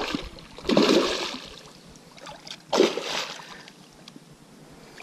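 Hooked pike thrashing at the surface beside the boat, making two splashes about two seconds apart.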